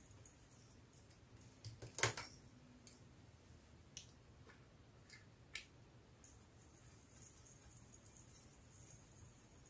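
Small plastic glitter pots handled and opened, giving a few sharp clicks, the loudest about two seconds in, over a faint fine rattle of glitter and tiny beads sprinkled onto clear slime in a glass dish.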